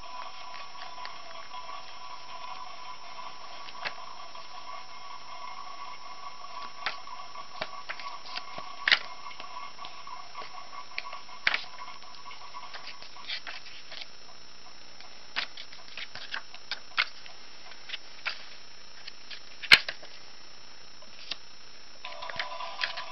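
Scattered clicks, taps and rustles from small plastic toys and paper being handled and a small notebook's pages being turned. Under them runs steady background music, which drops out about halfway and comes back near the end.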